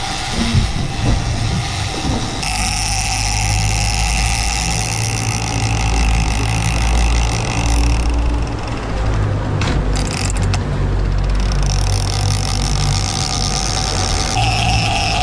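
Boat engine running steadily under way, with a low hum and water and wind hiss, its note shifting about two seconds in and again near the end. A brief run of clicks comes about ten seconds in.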